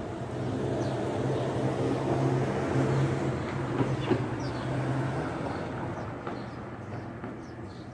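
A vehicle passing, its low engine hum swelling and then fading from about five seconds in, with faint bird chirps above it.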